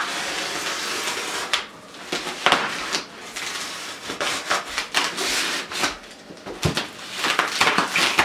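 A knife slicing along a carton wrapped in packing tape, in several scraping strokes with rustling of the tape. Near the end the lid is worked loose, and the tape and plastic crackle.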